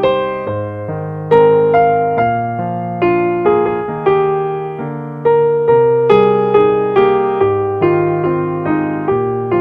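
Slow, gentle solo piano music: single notes and chords struck about once or twice a second, each ringing and fading before the next.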